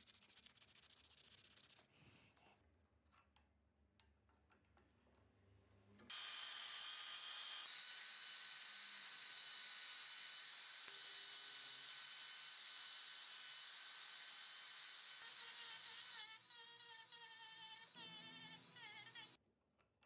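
Handheld rotary tool with a sanding drum running steadily for about ten seconds, sanding a walnut knife handle, a loud even hiss with a steady whine. Before it, a short stretch of abrasive rubbed by hand.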